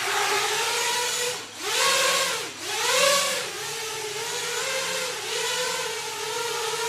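Electric motors and propellers of a 7-inch FPV quadcopter spinning with a steady whine. The pitch dips and climbs back twice, about one and a half and two and a half seconds in, as the throttle is eased and opened, then holds with a slight waver.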